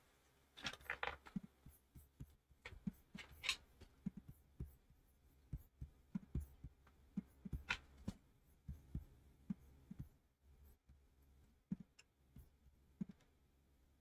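Near silence in a small room, broken by faint, scattered light clicks and taps at irregular intervals, with a low steady hum underneath.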